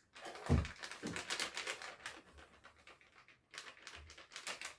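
Kitchen handling noises: a dull thump about half a second in, then a run of light clicks and rustles, as of packaging and utensils being handled on the counter.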